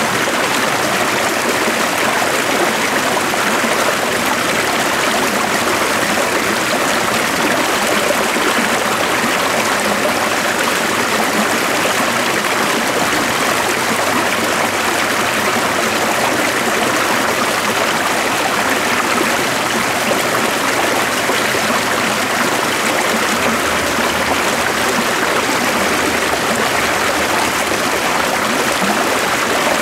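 A stream flowing steadily: a constant, even rush of running water.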